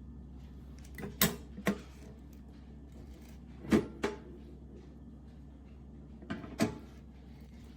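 Small stainless steel step-pedal trash can being handled, giving three pairs of sharp clunks and taps from its metal lid and pedal a couple of seconds apart.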